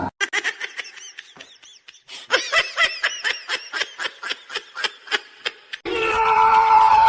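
Laughing in a rapid run of short pitched 'ha' sounds, with a brief pause about two seconds in. About six seconds in, a long, steady high-pitched sound starts and carries on.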